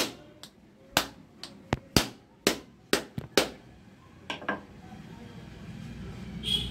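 Wooden rolling pin knocking on the hard, woody shell of a ripe wood apple to crack it, about a dozen sharp knocks at roughly three a second, with two softer ones just after and then the knocking stops.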